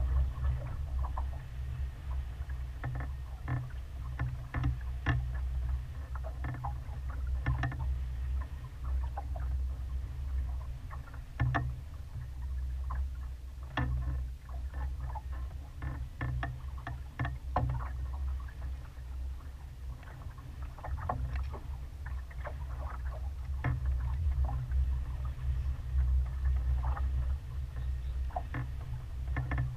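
A small sailboat under way: a steady low rumble of wind on the microphone, with water splashing and lapping against the hull in irregular short slaps.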